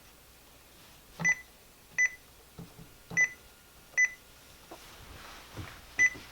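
RadioShack PRO-405 handheld scanner's keypad beeping as its buttons are pressed: five short, high beeps at uneven intervals, with faint button clicks between them.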